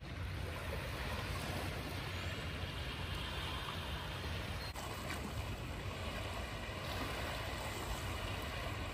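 Small lake waves lapping on a pebble shore, with a steady low rumble of wind on the microphone.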